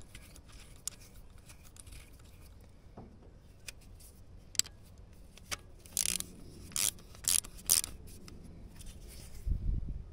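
Ratchet wrench turning a socket on a glow-plug terminal nut of a small diesel engine: a few faint clicks, then four quick bursts of ratcheting between about six and eight seconds in, and a dull low bump near the end.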